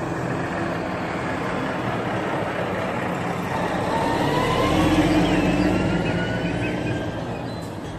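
A motor vehicle's engine and road noise, growing louder to a peak about halfway through and then fading, with a faint whine rising in pitch.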